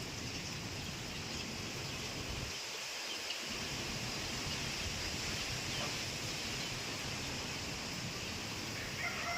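Heavy wind blowing steadily, an even rushing noise, with the low rumble dropping out briefly about three seconds in.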